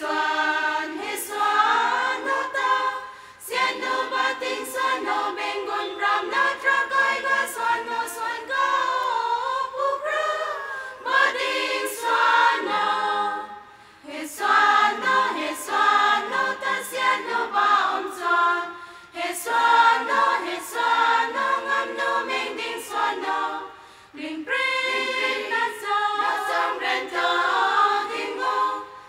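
A women's church choir singing together, in phrases with short breaks for breath between them.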